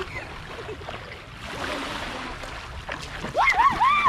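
Shallow surf lapping at the shore and feet splashing through the water. Near the end, three loud high-pitched shrieks, each rising and falling, from a child playing in the water.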